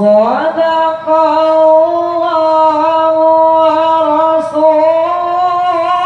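Male qari's voice reciting the Quran in the melodic, sung tilawah style, amplified through a microphone: long held notes that glide up in pitch just after the start and then sustain with small ornaments.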